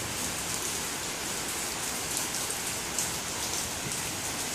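Steady rain falling: an even hiss with a few louder drop taps.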